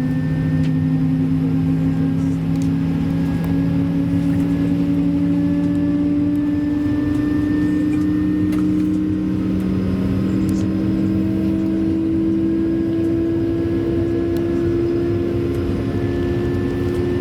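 Airbus A220-300's Pratt & Whitney PW1500G geared turbofan engines heard from inside the cabin: a steady droning hum carrying two low tones that slowly rise in pitch, the moaning tone known as the A220's "whale noise".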